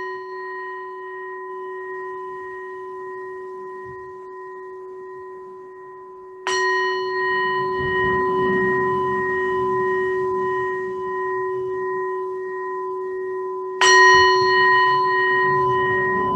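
A meditation bell is struck three times, once at the outset and again about six and a half and fourteen seconds in, each stroke ringing on steadily with a low tone and several higher overtones. It marks the close of the sitting meditation.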